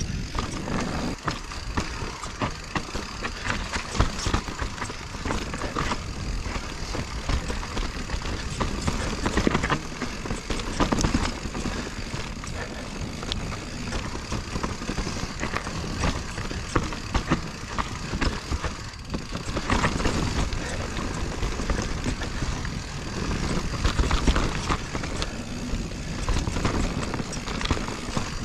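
Full-suspension mountain bike riding fast down a dirt trail: a steady rush of tyre noise and wind on the chest-mounted camera, with many short clatters and knocks as the bike goes over bumps.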